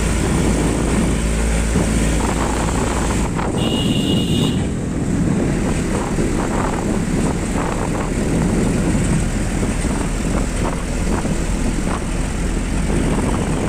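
Steady engine and road noise heard from inside a moving vehicle, with rushing air. A brief high beep about four seconds in.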